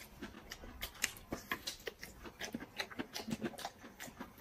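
Close-up chewing of tender bamboo shoots: a string of quick, irregular soft clicks, several a second.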